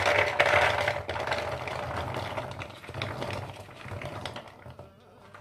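Soaked chickpeas pouring from a plastic colander into a plastic mixing bowl: a dense clatter of many small hard pieces, loudest at first and thinning out toward the end.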